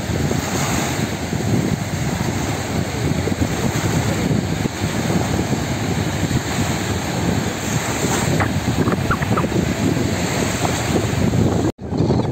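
Wind buffeting the phone's microphone over the wash of small waves breaking on a sandy beach, in loud, gusty steady noise. The sound drops out for an instant near the end.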